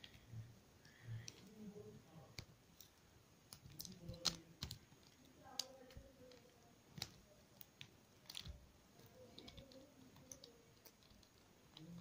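Soft, irregular clicks of a small plastic puzzle cube being twisted by hand; its layers are stiff and hard to turn.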